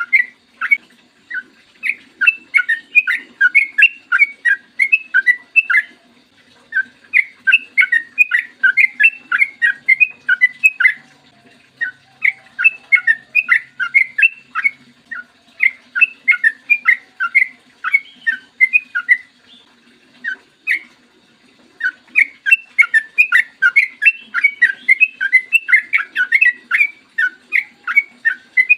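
Yellow-vented bulbul (trucukan) singing long, rapid phrases of short bubbling whistled notes, each run lasting several seconds, with brief pauses between runs and a longer pause about two-thirds of the way in.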